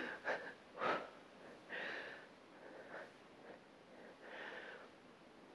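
A woman's breathing under exertion: several short, soft breaths through the nose and mouth, the strongest about a second in.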